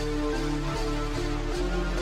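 Background music: held synth-like chords over a bass line, the notes stepping to new pitches every half second or so.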